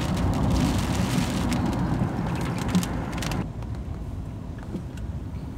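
Rain hitting a moving car's roof and windshield, heard inside the cabin over steady road and engine rumble. The rain noise cuts off suddenly about three and a half seconds in, leaving only the lower car running sound.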